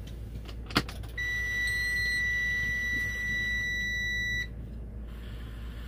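A sharp click, then a steady, high electronic beep held for about three seconds, over the low rumble of a semi-truck cab at highway speed.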